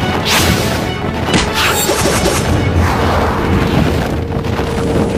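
Dramatic battle music mixed with studio fight sound effects for a Taiwanese glove-puppet martial-arts duel: booms, crashing impacts and two sweeping whooshes in the first two seconds.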